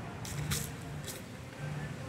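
Wind rumbling on the phone's microphone, with a few short sharp crackles in the first second or so.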